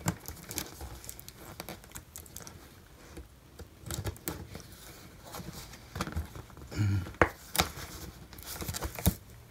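Cardboard keyboard box being cut open at its end seal with a multitool blade and the flap pried loose: scraping and crinkling of cardboard with scattered sharp clicks and taps, loudest about seven seconds in.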